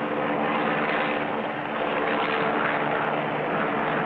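Propeller airplane engine running steadily in flight, a continuous buzzing drone.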